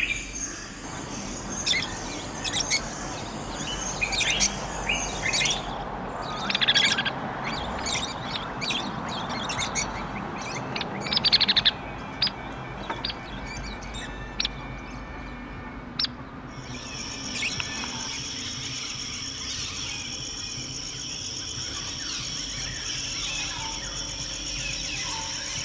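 Birds chirping and calling in short, sharp notes, with a louder burst of calls about eleven seconds in. After about sixteen seconds the calls stop and a steady high-pitched drone takes over.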